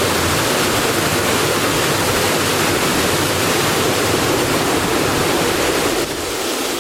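Steady rush of water driving the wheels of a water-powered sawmill. The sound drops a little about six seconds in.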